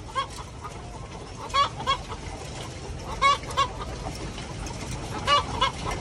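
Brown laying hens clucking: short pitched calls in pairs, about four pairs spaced a second and a half or so apart, over a steady hiss. This is the cackling hens make after laying an egg.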